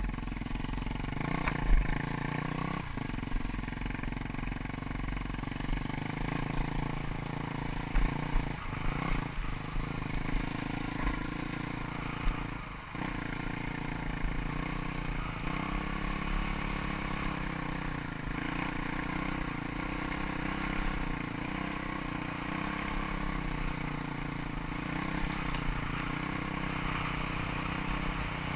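Dirt bike engine running on a trail ride, its pitch rising and falling with the throttle. A few clunks and rattles come through, about two seconds in, around eight to nine seconds, and near thirteen seconds.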